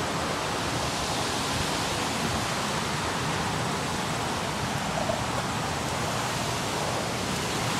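Steady, even outdoor rushing noise with no distinct events.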